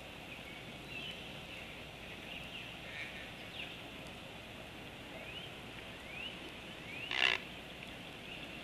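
Steady outdoor insect-like drone with several short faint rising chirps. About seven seconds in, one short, harsh, noisy call from the juvenile bird stands out as the loudest sound.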